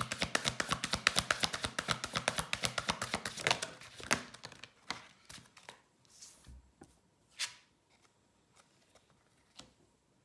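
A deck of large oracle cards being shuffled, a rapid run of card clicks, about ten a second, for the first three and a half seconds. Then a few single cards are drawn and laid on the spread, each a soft slap or swish.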